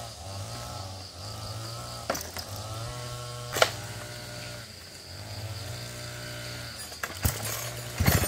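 An engine running steadily, with a few sharp knocks or clacks about two, three and a half, seven and eight seconds in.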